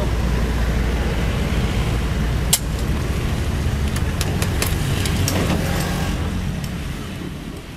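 Caterpillar 320D2 L excavator's diesel engine running steadily as the machine swings and lowers its bucket, with one sharp metal clank about two and a half seconds in and a few lighter knocks a couple of seconds later. Passing road traffic mixes in, and the sound fades out near the end.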